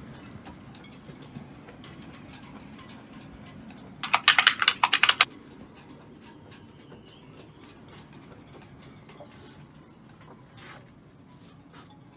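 Scattered sharp mechanical clicks and knocks, with a loud burst of about a dozen rapid clattering strokes about four seconds in that lasts just over a second.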